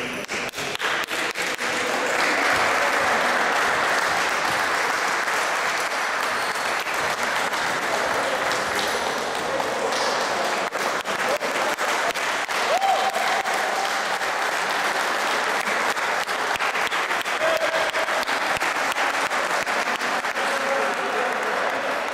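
Applause from a small crowd of players and spectators, many hands clapping together. It swells over the first couple of seconds, then keeps up steadily.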